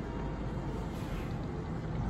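Single-deck bus engine running with a low, steady rumble as the bus drives slowly across the bus station.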